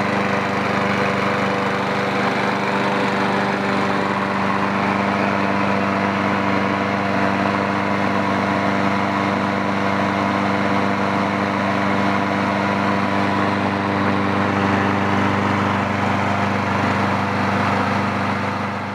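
Ariens walk-behind lawn mower's Kohler single-cylinder engine running steadily at an even speed.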